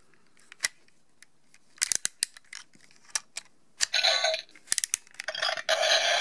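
Small plastic clicks and rattles as a Yo-kai medal is fitted into a Yo-kai Watch Model Zero toy. About four seconds in, the watch's small speaker starts playing an electronic tune for the medal.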